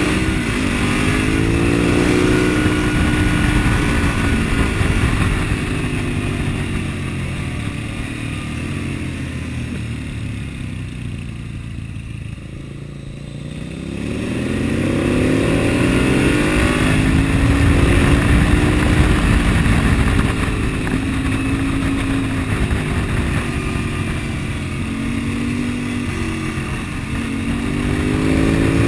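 Husqvarna TR650 Terra's single-cylinder engine under way, its pitch climbing and falling as the throttle is worked through bends. It eases to a quieter low about halfway through, then climbs again, with wind rushing over the microphone.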